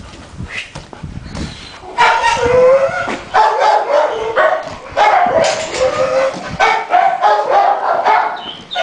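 Staffordshire Bull Terrier cross Labrador barking and whining excitedly during ball play. The high-pitched, drawn-out calls start about two seconds in and come about once a second.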